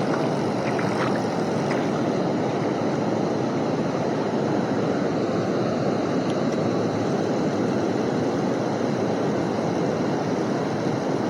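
River water rushing steadily, a constant even wash with no break.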